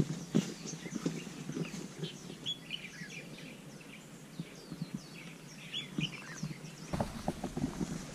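Small birds chirping in quick, short downward-slurred notes. Footsteps sound on a dirt trail near the start and again from about seven seconds in.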